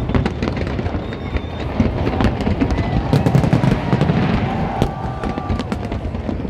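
Fireworks display: many shells bursting in a continuous barrage of bangs and crackles over a low rumble.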